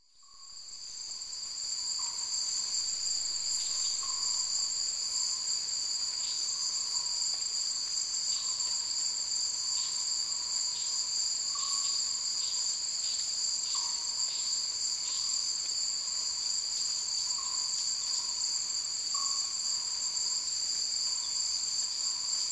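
Steady, unbroken high-pitched drone of a rainforest insect chorus, fading in over the first couple of seconds, with faint short chirps recurring every couple of seconds beneath it.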